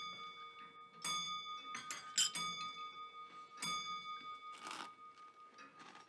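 Dishes, cutlery and glassware clinking at a laid dinner table, a sharp clink every second or so, the loudest about two seconds in. Under the clinks runs a steady, clear ringing tone.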